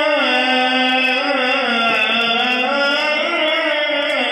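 Muezzin's call to prayer (adhan) from the minaret loudspeakers: one man's voice holding long, slowly gliding, wavering notes.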